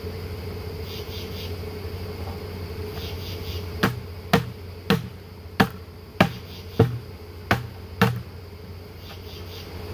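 Upturned plastic bucket of honey bees being banged to knock the cluster out into a hive box: seven sharp knocks about half a second apart, starting about four seconds in. Under them runs the steady buzz of the bees.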